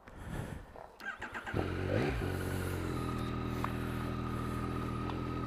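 Yamaha MT-09's three-cylinder engine being started: a short rattle of the starter cranking, then the engine catches about a second and a half in and settles into a steady idle.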